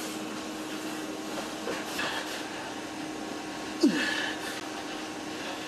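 Steady mechanical hum of air handling, with a brief sharp sound about four seconds in whose pitch drops quickly, and a fainter one about two seconds in.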